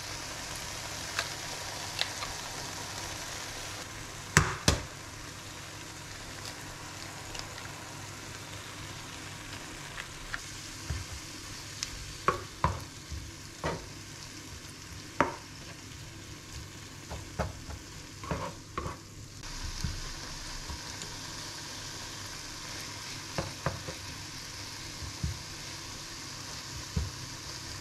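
Eggs and spinach frying in a nonstick pan, a steady sizzle throughout. A sharp double knock comes about four seconds in as an egg is cracked. Later come many short taps and scrapes of a utensil against the pan as the mixture is stirred.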